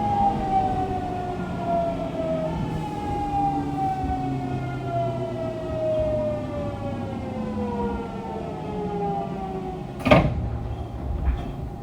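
Hitachi late-type GTO-VVVF inverter on a Fukuoka City Subway 2000 series train, its whine falling steadily in pitch as the train slows under braking. A sharp clack about ten seconds in.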